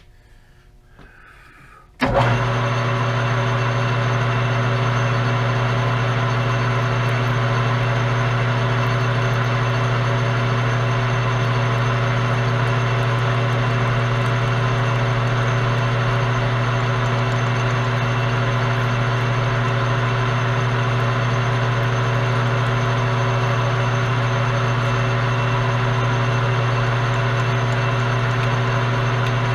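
Metal lathe switched on about two seconds in, then running steadily with a strong low hum, turning the work while a number 12 stubby drill bores a hole for a dowel-pin post.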